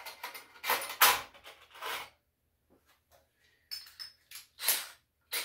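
Clicks and clatter of a stack of thin drilled metal can-lid discs and tools being handled, in bursts during the first two seconds and again around four seconds with a quiet pause between, and a brief thin metallic ring.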